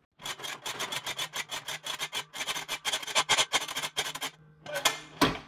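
Retractable pressure washer hose reel's locking ratchet clicking rapidly, about eight to ten clicks a second, as the hose moves through the reel. The clicking stops after about four seconds, and two louder clicks follow near the end.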